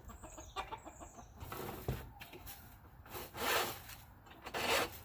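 Scraping and rubbing as a winch is worked loose from its mount behind an ATV's headlight, with two longer, louder scrapes near the end.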